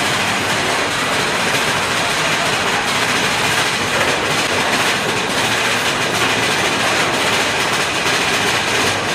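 Big Thunder Mountain mine-train roller coaster running along its track through a tunnel: a loud, steady rumble and clatter of the train's wheels on the rails.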